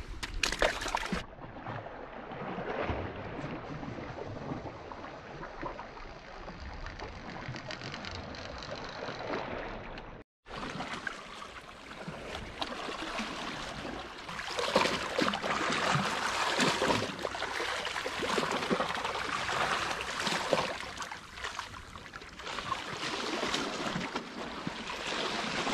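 Sea water washing and lapping against shoreline rocks, louder in the second half, with a brief dropout about ten seconds in.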